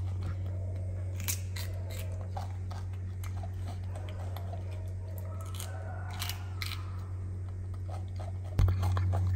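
A young monkey biting and chewing a raw cucumber: scattered crisp crunches and clicks over a steady low hum, with a thump near the end.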